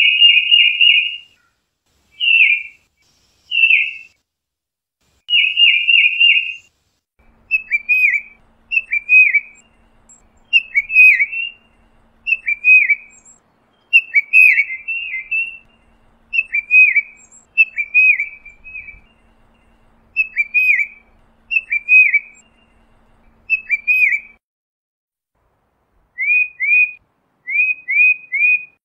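Tufted titmouse calling: clear whistled notes repeated in short series, starting as quick rapid runs, then falling two- and three-note phrases about a second apart, and after a short pause quick pairs and triplets near the end. A faint low hum sits under the middle part.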